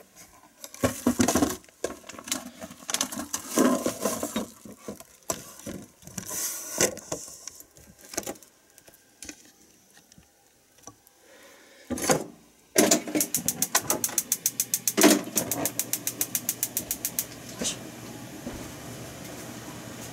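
Scattered knocks and clatter of kitchen things being handled. Then a gas stove's igniter clicks quickly and evenly, about seven clicks a second, for some four seconds, and the burner lights and runs with a steady low hum.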